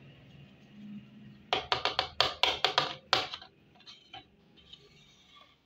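A quick run of about nine sharp plastic clicks and taps, about five a second, as a small plastic toy pot is handled, followed by a few fainter taps as it is set down.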